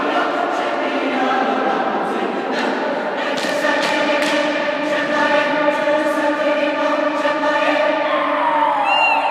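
Mixed high-school choir singing a Haitian vodou song a cappella, many voices holding full chords, with a few sharp thumps. Near the end one voice slides down in pitch.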